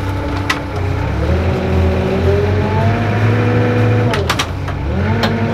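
Houseboat's inboard engine revving up, holding, then dropping back with a couple of sharp clicks before revving again near the end, as the helmsman works the throttle to manoeuvre the boat off its mooring.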